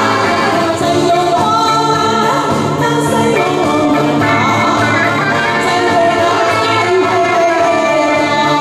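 Live band music: a woman sings into a microphone over electric bass guitar, keyboard and woodwinds.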